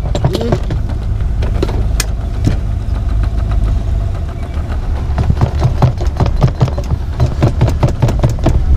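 Diesel being pumped from a dock fuel nozzle into a plastic jerrycan, over a steady low motor hum. A busy run of clicks and knocks starts about halfway through.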